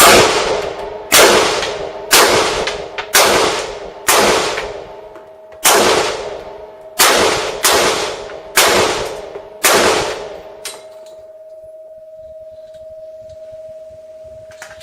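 AR-15 rifle firing a string of about ten single shots at an uneven pace, each with a short ringing tail.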